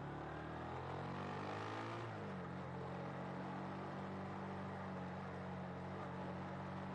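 Honda Winner V1's 150 cc single-cylinder engine running under way. Its note drops slightly about two seconds in, then holds steady at an even cruising pitch.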